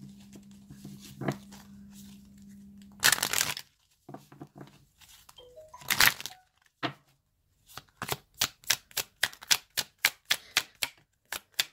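Oracle cards being shuffled by hand: a couple of short rustling shuffles, then from about eight seconds in a quick run of sharp card clicks, about four a second, as the cards are flicked through.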